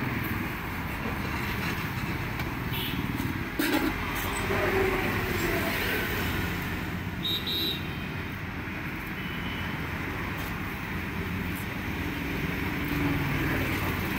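Roadside traffic noise, with vehicles running steadily past and a short knock about three and a half seconds in.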